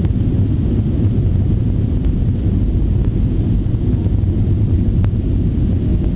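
Cabin noise inside an Avro RJ85 airliner on short final with flaps fully extended: a steady low rumble of airflow and its four turbofan engines.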